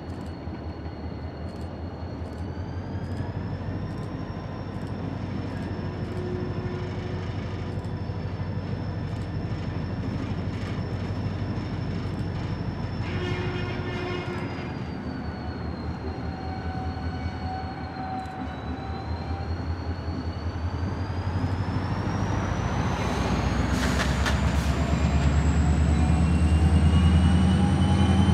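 CSX diesel-electric freight locomotive pulling slowly around a tight curve, its engine rumbling and growing louder as it approaches. A thin high whine runs throughout and climbs steadily in pitch over the last several seconds.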